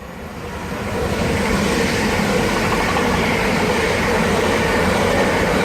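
Twelve-car Class 387 Electrostar electric multiple unit passing through the station at speed. Its rush of wheel and air noise builds over the first second and then holds steady and loud.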